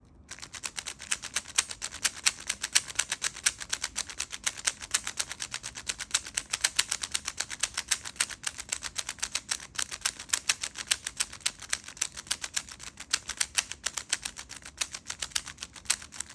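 Rubik's Cube layers being turned fast by hand, a continuous run of sharp plastic clicks, several a second, with no pause throughout.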